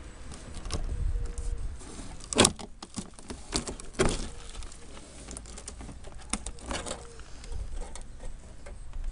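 Rusted sheet steel of a 1996 Ford Ka's rear wheel arch and fuel-filler surround being bent and torn by a gloved hand: irregular cracks and crunches, the loudest about two and a half seconds in and again at four seconds, over a low rumble of handling noise.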